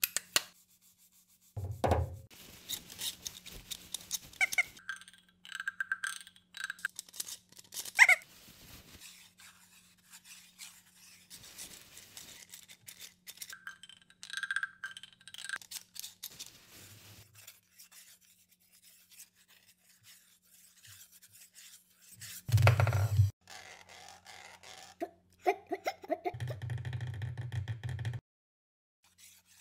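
Woodworking shop sound effects in quick succession: clicks, scrapes and rubbing of tools on wood, with two louder low thumps, the first about two seconds in. Near the end there is a short steady buzzing run lasting about a second and a half.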